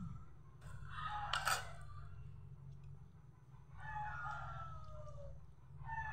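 Rooster crowing in the background, heard twice: the second crow is long and falls in pitch at its end. A sharp click comes about a second and a half in.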